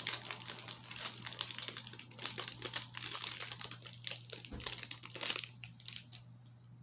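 Crinkly packaging crumpled and rustled by hand as a small cardboard luggage tag is taken out of it, a dense run of crackles that thins out near the end.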